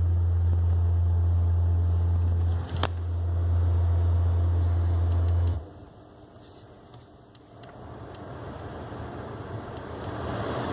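Low, steady humming from a 2018 Honda Accord Hybrid, dipping briefly just under three seconds in and cutting off suddenly about halfway through. A much fainter noise follows and slowly grows louder.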